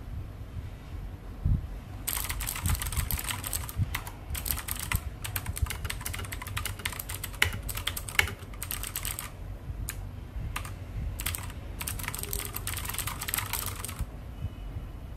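Typing on a Lenovo MK300 mechanical keyboard with clicky Kailh Blue switches: quick runs of sharp key clicks starting about two seconds in, a few scattered keystrokes in the middle, then another quick run near the end.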